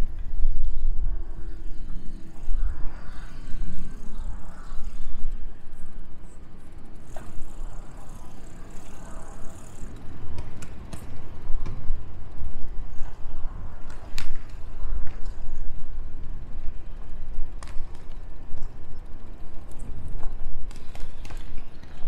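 Wind rumbling and buffeting on the microphone while riding a bicycle, with scattered sharp clicks from the ride, mostly in the middle of the stretch.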